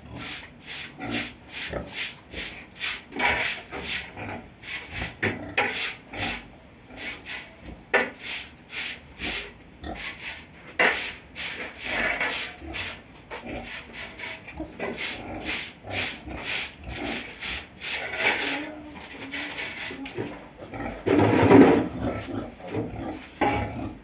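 A broom sweeping a concrete pig-pen floor in short, rhythmic rasping strokes, about two or three a second. A louder, fuller noise comes about 21 seconds in.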